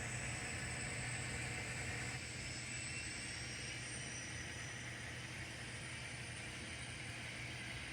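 N scale model train running: a steady low hum with hiss, easing slightly about two seconds in.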